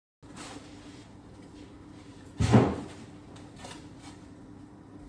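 A single loud thump about halfway through, over a steady low hum and a few faint clicks.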